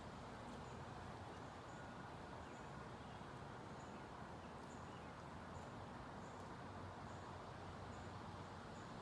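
Faint forest ambience: a steady low hiss with small, high, short chirps repeating about every second.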